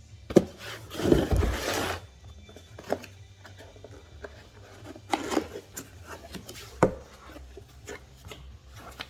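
A cardboard box and its packing being handled as a subwoofer is unboxed. There is a loud rustling scrape about a second in, another shorter one about five seconds in, and a few sharp knocks and clicks between them.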